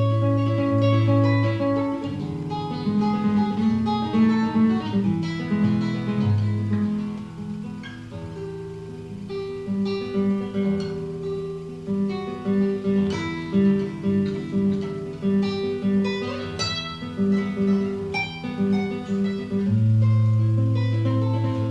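Acoustic guitar played fingerstyle: plucked notes in repeating figures over deep, ringing bass notes.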